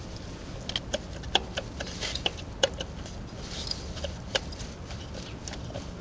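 Irregular light clicks and knocks as a water pump's pulley on a Chrysler 3.2 V6 is rocked back and forth by hand, with a faint low hum underneath. The clicking comes from play in the pump's worn bearing, which the owner takes to be what tore up the timing belt.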